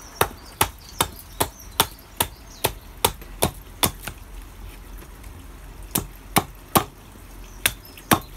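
Carving axe chopping into the handle of a wooden kuksa blank: quick, sharp strikes about two and a half a second, then a pause of about two seconds and a second, shorter run. The axe is taking waste off the side of the handle down to a stop cut, so the pieces come away easily.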